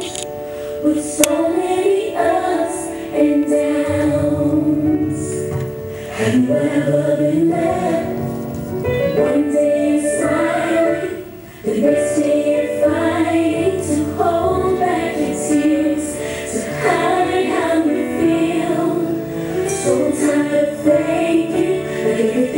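Gospel song with a choir singing; deep bass notes come in about four seconds in, and the music drops briefly just before the middle before coming back in full.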